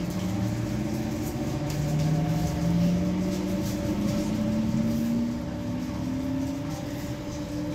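Electric metro train heard from inside the car as it moves along a station platform: a steady rumble of the running train, with a motor whine that rises slowly in pitch as the train picks up speed over the first five seconds, then levels off.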